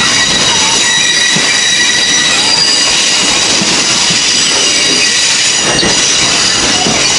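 A slow-moving train's steel wheels squealing against the rail, a steady high-pitched squeal of several tones over the rumble of the car rolling on old jointed track.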